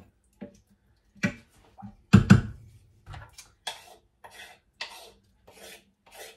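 Spoon knocking and scraping in the Instant Pot's metal inner pot while bolognese sauce is stirred. A few knocks, the loudest two close together about two seconds in, then short scraping strokes about two a second.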